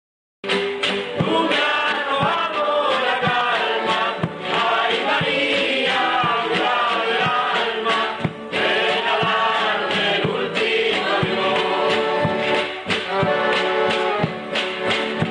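Chilote folk song: a group of voices singing together over a large stick-beaten drum with a hair-on cowhide head, keeping a steady beat. It starts abruptly about half a second in.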